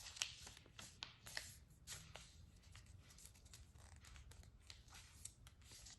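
Faint rustling and soft clicks of a sheet of A4 paper being handled, turned over and creased by hand.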